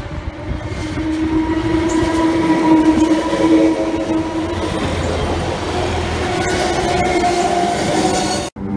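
SNCF Z6400 suburban electric multiple unit passing close by: a loud rumble of wheels and running gear with steady whining tones over it, growing about a second in as the cars go past. The sound cuts off abruptly just before the end.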